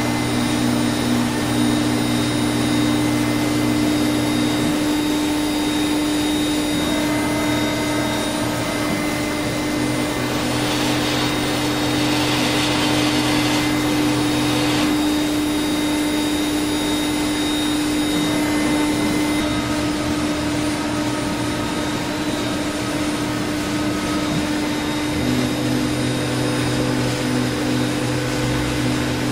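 Laguna SmartShop 1 CNC router running with its vacuum hold-down pumps: a loud, steady hum, with lower tones that switch on and off every few seconds as the spindle head moves, and a hiss for a few seconds around the middle.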